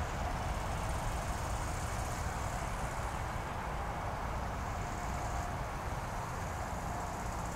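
Airbus A319's twin jet engines at takeoff power, a steady rushing noise heard from a distance as the airliner rotates and lifts off the runway.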